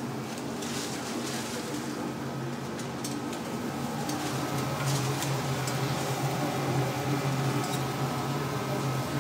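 Steady low hum of commercial kitchen machinery, with a faint steady higher whine and a few light clicks.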